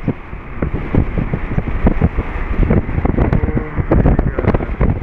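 Strong, gusty wind buffeting the camera's microphone, a continuous rumbling roar with irregular thumps.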